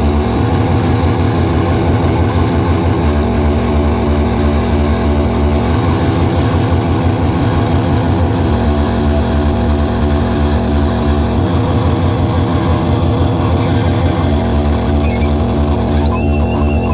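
Harsh noise music: a dense, loud wall of electronic noise over a low, rumbling drone that pulses in stretches of about three seconds, alternating with steadier stretches.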